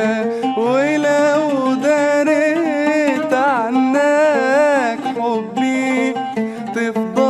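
A man singing in Arabic with oud accompaniment, drawing out long, wavering ornamented notes in a melismatic passage.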